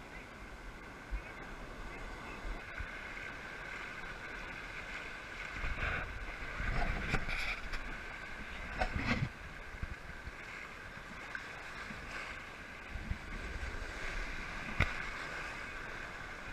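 Ocean surf washing through the shallows, with wind buffeting the microphone. A louder stretch of rushing water comes about six to nine seconds in, and there is a sharp knock near the end.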